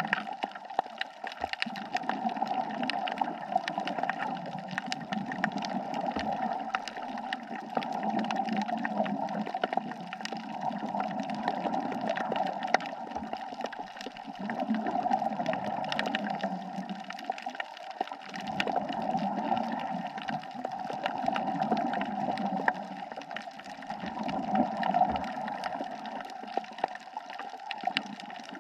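Underwater sound on a reef: a bubbling, gurgling wash that swells and fades every few seconds, like a scuba diver's exhaled bubbles, over a constant crackle of sharp clicks.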